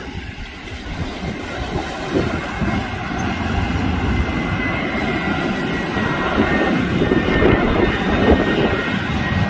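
Jet airliner's engines growing louder as it nears: a rumble, with a steady high whine that comes in about two seconds in.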